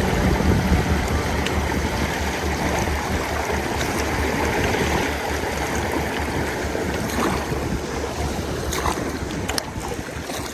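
Steady rush of river water with wind buffeting the microphone, and a few light clicks near the end.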